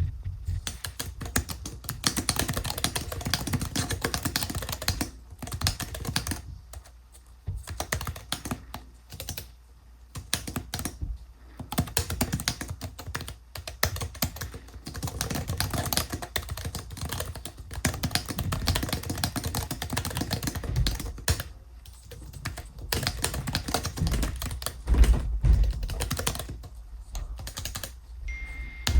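Typing on the Keychron B11 Pro ultra-slim foldable keyboard: a fast, steady run of light key clicks, broken by short pauses every few seconds.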